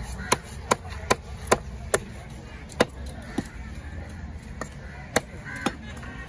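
Cleaver chopping a diamond trevally into pieces on a wooden chopping block: sharp knocks, a quick run of five in the first two seconds, then a few more spaced further apart.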